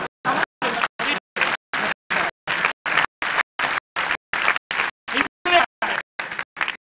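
Audio of a live theatre show chopped into short pieces, about three a second, with dead silence between each: the recording is repeatedly dropping out, leaving the stage sound stuttering and unintelligible.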